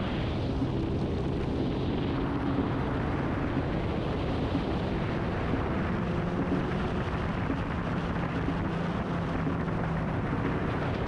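Motorcycle engine running at road speed, its steady note half buried under loud wind rush on the onboard camera's microphone.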